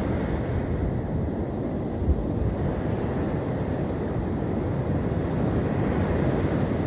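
Sea surf breaking on a beach, with wind buffeting the microphone in a steady low rumble.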